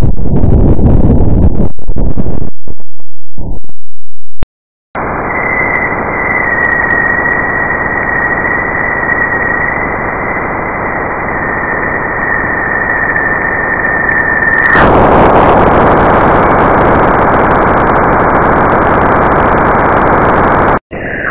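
Eerie synthetic space sounds, presented as NASA radio-wave recordings of planets turned into audio. A choppy noise that cuts in and out (shown as Mars) stops about four seconds in. After a short silence comes a steady hiss with a high whistling tone held over it (shown as Jupiter), which turns brighter and fuller about fifteen seconds in.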